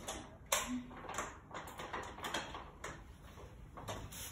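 Light clicks and knocks of a glass balcony door's handle and lock being worked, with a sharper knock about half a second in.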